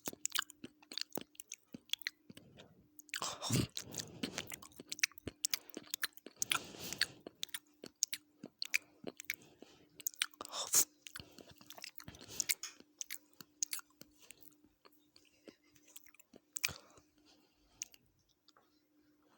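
Close-miked chewing and mouth noises of a person eating chicken biryani: irregular clicks and smacks, with louder stretches of chewing about three to four seconds in, around seven seconds, around eleven seconds and near seventeen seconds. A faint steady hum runs underneath.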